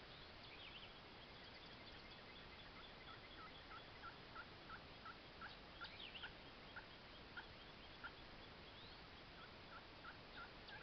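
A turkey calling in a faint run of short, repeated notes, about three a second, that slow toward the end and pick up again briefly near the end.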